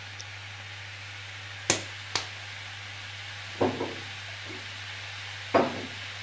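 Spice containers being handled and set down: two sharp clicks about two seconds in, then duller knocks near the middle and again near the end, over a faint steady hiss and a low hum.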